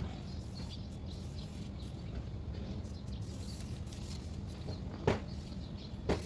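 Two sharp knocks, about five and six seconds in, over a steady low hum, with faint high chirps in the background.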